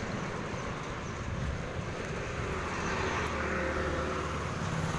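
Steady road-traffic noise with a vehicle engine running; its low hum is strongest from about three seconds in until near the end.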